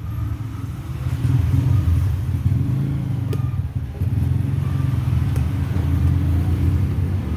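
Kemei KM-1986 hair clipper running with a steady low buzz, with a few faint clicks.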